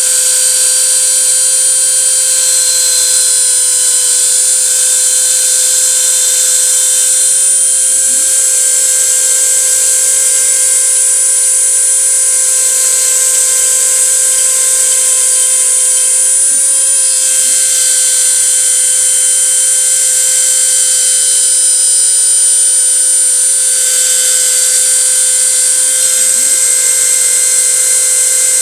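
CNC router spindle running steadily through a test cut, a loud high-pitched whine with a steady lower hum. A fainter low tone dips and climbs back about every eight seconds as the machine's axes move.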